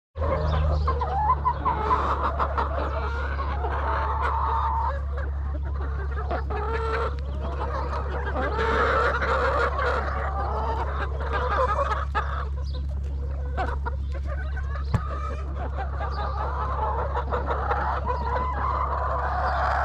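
A large flock of white Lohmann Sandy laying hens clucking and calling over one another continuously, over a steady low hum.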